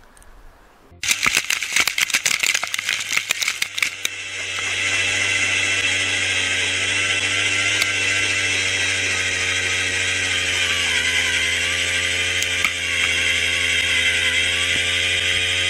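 Power ice auger boring through lake ice. About a second in it starts with a loud clatter as the blades bite into the ice, then settles into a steady motor whine while the spiral lifts ice shavings out of the hole.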